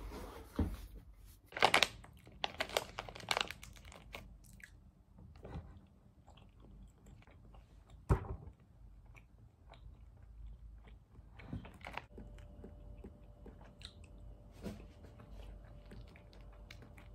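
Crunching and chewing candy, the loudest crunches in a cluster about two to three seconds in, then a sharp crack around eight seconds, with small crinkles of a plastic candy wrapper being handled and a faint steady hum in the last few seconds.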